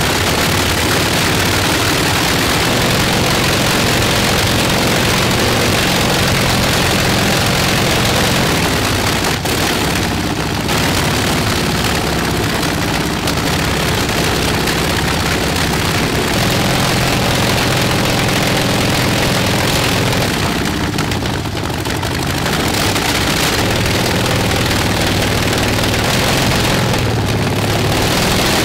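Shvetsov ASh-62IR nine-cylinder radial aircraft engine running steadily with its propeller turning: a loud, even, deep engine note that dips slightly about two-thirds of the way through.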